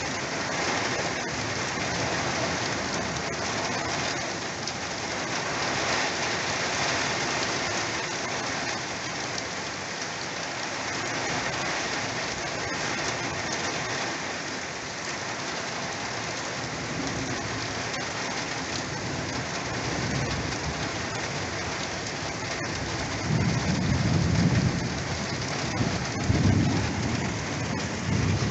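Heavy rain and wind in storm-tossed pine trees, a steady hiss throughout. Several deep low rumbles swell up in the last few seconds and are the loudest part.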